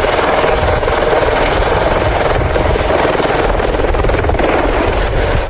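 Eurocopter EC120 light helicopter hovering low: loud, steady rotor chop with a fast even beat, a deep rumble and a thin high turbine whine. It cuts off abruptly at the end.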